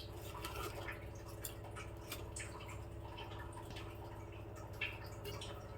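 A pot of rasam heating on the stove: faint scattered drips and ticks over a steady low hum.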